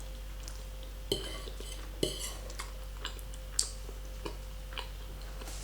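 Cutlery clinking and tapping against a plate of pasta: scattered light clicks, a few with a short metallic ring.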